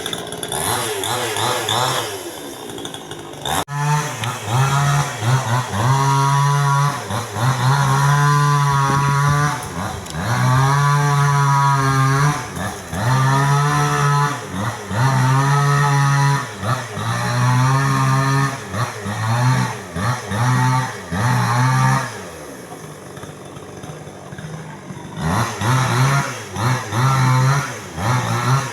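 Chainsaw engine revved hard in repeated bursts of a second or two, dropping back between them. There is a sharp crack about three and a half seconds in.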